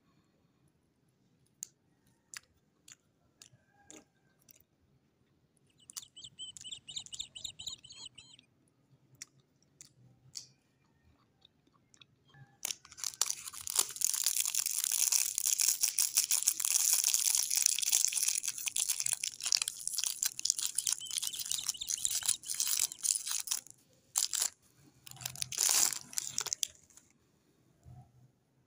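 Clear cellophane lollipop wrapper crinkling and crackling as it is pulled off a swirl lollipop. Scattered light clicks and a brief rustle come first; the dense, loud crackling starts a little before halfway and lasts about fourteen seconds.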